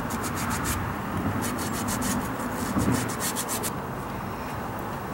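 A brake part being scrubbed clean by hand, with rapid back-and-forth rubbing strokes of about five a second, a short break about a second in, and a stop near the end.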